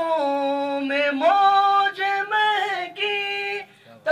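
A man singing a devotional Urdu naat unaccompanied, holding and bending long notes of the melody with no words clearly sung, breaking off briefly about two seconds in and again near the end.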